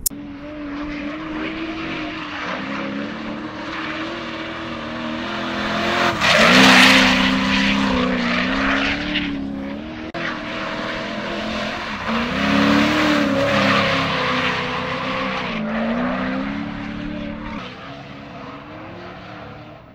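Drift car engine at high revs, its pitch rising and falling as the throttle is worked through the slide, with the tyres squealing. The sound is loudest about six to nine seconds in and again around twelve to fourteen seconds, over two separate passes.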